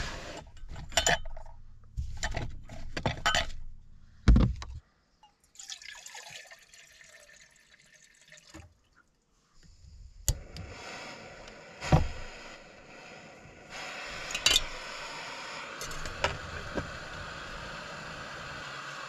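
Camp cookware clattering as it is set out, then a backpacking gas canister stove lit with a sharp click, its burner hissing steadily and louder after about fourteen seconds.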